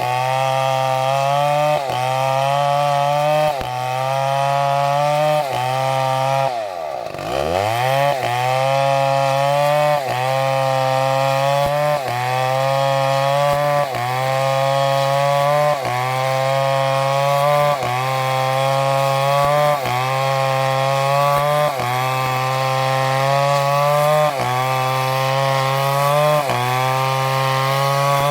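STIHL two-stroke chainsaw running at high revs while cutting wood. Its pitch sags and recovers about every two seconds, and dips much deeper once, about seven seconds in.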